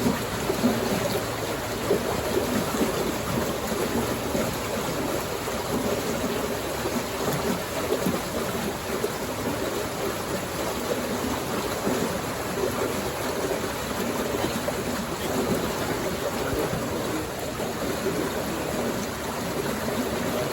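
River water flowing with a steady, continuous rushing.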